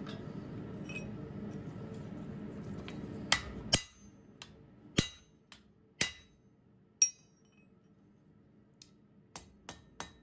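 Hand hammer strikes on hot mild steel bar against an anvil, each a sharp metallic clink with a short ring: two strikes about three seconds in, single strikes about a second apart, then a quicker run of blows near the end. A low steady rushing noise underneath cuts off suddenly about four seconds in.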